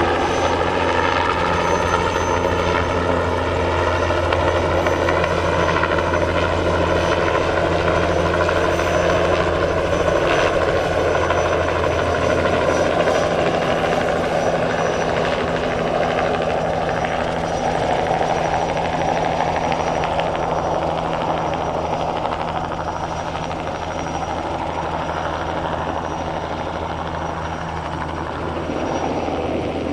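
Bell 206B-3 JetRanger III helicopter flying, its turboshaft engine and rotors giving a steady low hum under a whining, many-toned sound. About halfway through, the whine thins into an even roar, and the level sags a little before rising again near the end.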